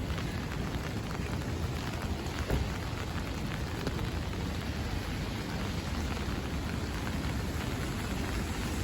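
Steady heavy rain falling, with a dense patter of individual drops over a low rumble, and a single brief knock about two and a half seconds in.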